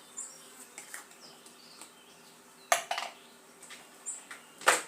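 Kitchen utensils knocking against a bowl: a few light clicks, then two sharp knocks about two seconds apart, the second the loudest. Faint short high bird chirps sound in the background.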